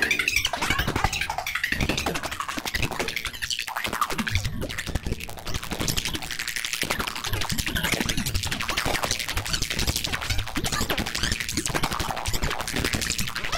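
Planetarium, a four-engine granular instrument for UVI Falcon, playing a dense, crackling stream of rapid clicks and noise over a low rumble.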